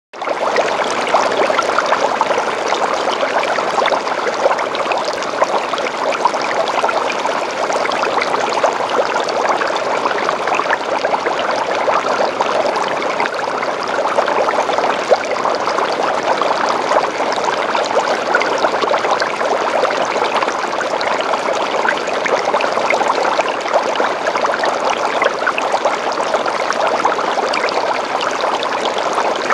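Aquarium water pouring and bubbling steadily, a dense, even splashing trickle.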